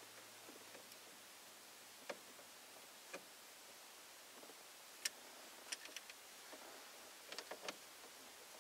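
Faint, scattered light clicks of small screws and plastic steering-column parts being handled and fitted on a 1991 Ford F-150 steering column, with a quick run of clicks a little past seven seconds in.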